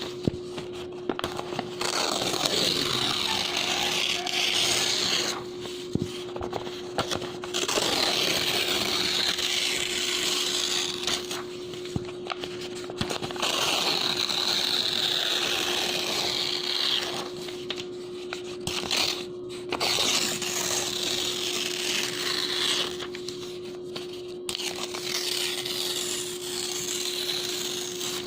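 Sheets of clean bond paper being torn in long, slow rips: several tears of a few seconds each, separated by short pauses. A steady hum runs underneath.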